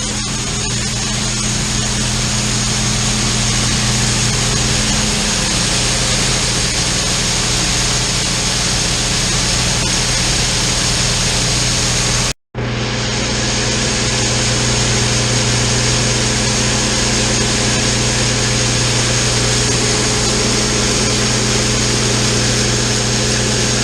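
Farm vehicle's engine running steadily under load, a constant drone with hiss, heard from inside the cab. It cuts out for a split second about halfway, then carries on unchanged.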